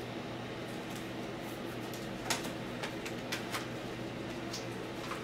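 Trading cards and mail being handled: a few soft clicks and rustles, the loudest about two seconds in, over a steady low room hum.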